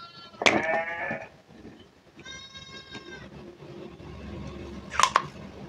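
A goat bleating in the background, three calls, the second the loudest and falling in pitch. A sharp click comes near the end.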